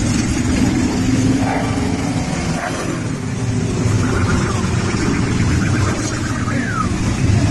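A large group of motorcycles running past in a steady, loud low rumble.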